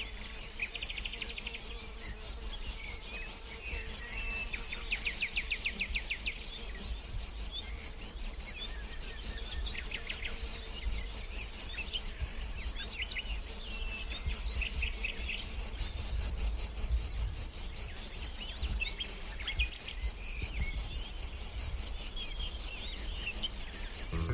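Outdoor summer ambience: a steady, high insect chirring, with small birds chirping and trilling over it now and then.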